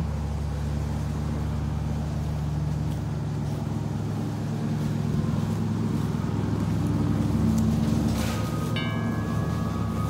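A neighbour's lawn mower engine running steadily, a low hum throughout. About nine seconds in, the metal tubes of a hanging wind chime are struck and ring with a few clear, lingering notes.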